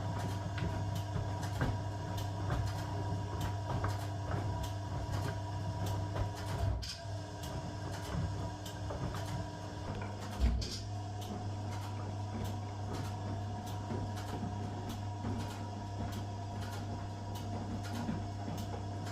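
1982 Eudora Sparmeister 700 washing machine running: a steady motor hum with regular light ticks a few times a second, and two sharper knocks about seven and ten seconds in.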